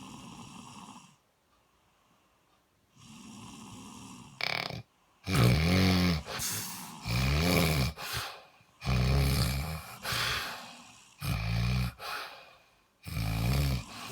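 A person snoring in their sleep. It starts with two soft, breathy breaths, then about five seconds in turns to a run of louder, rough, rattling snores, one every second or two.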